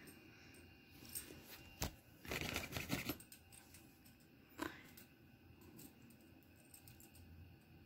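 Faint crinkling rustle of a crinkly fabric cat play tunnel as the cat moves against it, loudest for about a second a little over two seconds in, with a sharp click just before and another near the middle.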